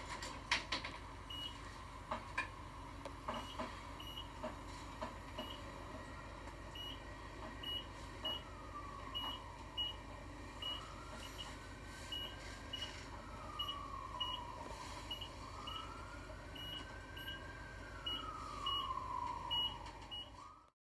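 Inside a passenger elevator car: short high beeps repeating about twice a second over a steady low hum. In the second half a fainter whine twice rises in pitch, holds, then falls.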